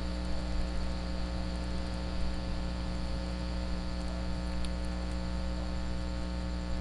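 Steady electrical mains hum with a low, even hiss from the recording's audio chain.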